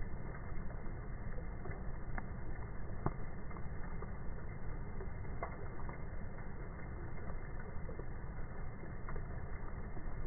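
Rain falling on a pond and a wet wooden dock: a steady patter with scattered sharper drop hits over a low rumble.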